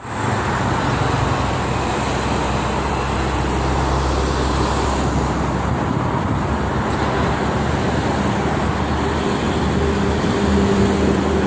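Dense highway traffic of trucks, a bus and cars passing on a multi-lane toll road: a steady rush of tyre noise over a low rumble of heavy engines. Near the end a passing truck's engine drone stands out and the sound is loudest.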